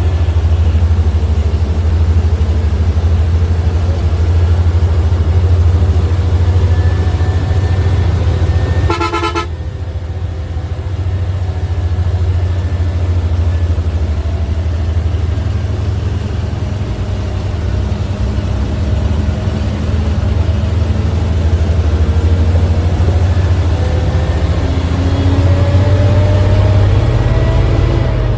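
Bus engine and road rumble, steady and loud, with one short horn toot about nine seconds in. The engine note slowly rises near the end as the bus speeds up.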